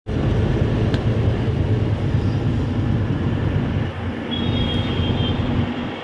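Goods lorry driving along a highway, heard from inside its cab: a loud, steady rumble of engine and road noise.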